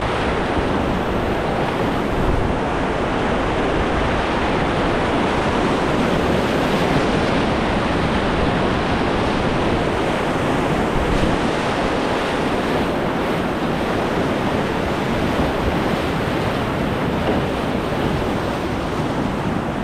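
Whitewater rapids rushing steadily around an open canoe, heard close at water level.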